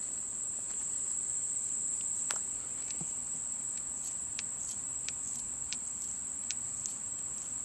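Steady high-pitched insect chorus, like crickets, with light scattered clicks and taps.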